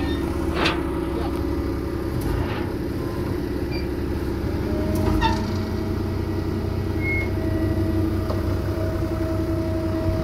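Wheel loader's diesel engine idling steadily, with a couple of knocks from the loading ramps being shifted, about half a second in and again about five seconds in.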